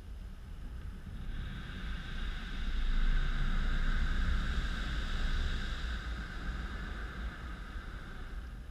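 Automatic rollover car wash gantry passing over the car: a hissing rush that swells about a second in, peaks in the middle and fades near the end, over a steady low rumble.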